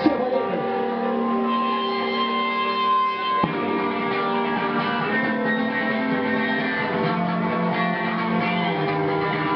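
Live rock band's electric guitars playing long held notes and chords through amplifiers, shifting to a new chord about three and a half seconds in.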